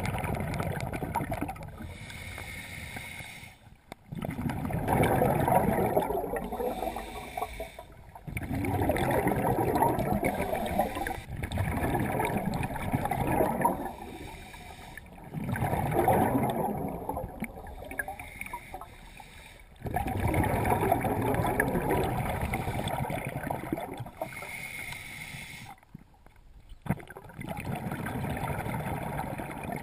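Scuba regulator breathing underwater: exhaled bubbles rush past in a loud burst every few seconds, with quieter pauses between breaths while the diver inhales.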